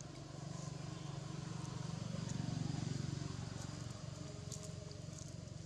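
Low engine drone of a motor vehicle off in the distance, swelling to its loudest about halfway and then easing off as it passes, with a few faint scattered ticks over it.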